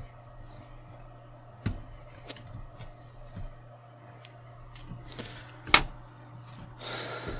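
Scattered small clicks and taps from hands handling a laptop's plastic screen bezel and small tools while the rubber screw covers come off, with two louder knocks (one about two seconds in, one near six seconds) and a short rustle near the end. A low steady hum runs underneath.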